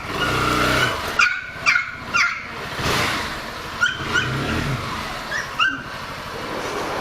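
A dog barking in about five short yelps, spread across a few seconds, over a motorcycle engine idling that revs up briefly twice.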